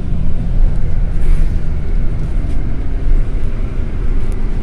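Cabin noise inside a moving LiAZ 5292 city bus: loud, steady engine and road rumble. An engine note holds steady for about the first two seconds.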